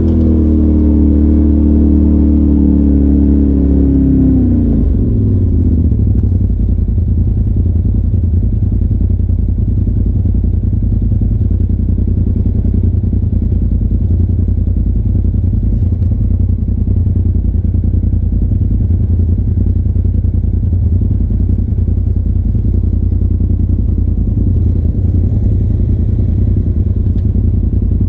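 Polaris RZR Turbo side-by-side's engine, heard from the cab: running at raised revs for the first four seconds or so, then the revs drop off and it settles into a steady low rumble.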